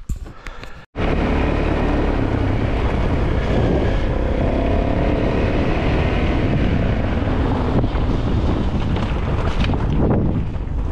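Wind buffeting the microphone in a steady, loud rumble that cuts in suddenly about a second in.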